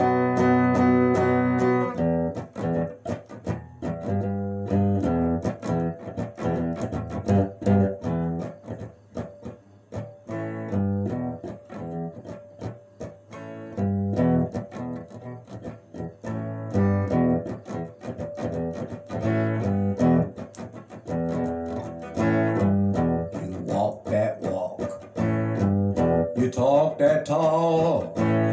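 Solid-body electric guitar played alone in a boogie rhythm: a held chord at first, then short, choppy picked notes repeating in a riff.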